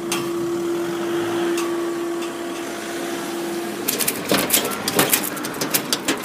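Level crossing barrier mechanism humming steadily as the barrier booms rise, the hum cutting off a little under four seconds in as the barriers reach the raised position. It is followed by a run of irregular sharp clicks and knocks.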